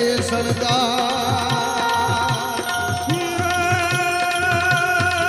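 Gujarati devotional folk music (bhajan) played between sung lines: a steady drum beat under long held melody notes.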